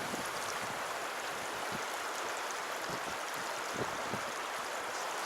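Small stream's water running steadily, an even rushing hiss with a few faint low knocks.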